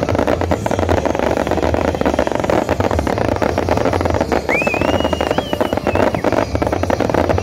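Fireworks finale: a dense, continuous barrage of bangs and crackling. About four and a half seconds in, a whistle rises and holds for about a second and a half.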